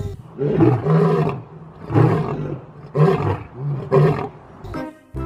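Male lion roaring: a series of short, grunting roars, about one a second, trailing off near the end.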